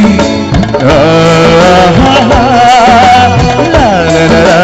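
Live band music: a melody line that wavers in pitch and slides down near the end of the phrase, over steady low notes and a beat.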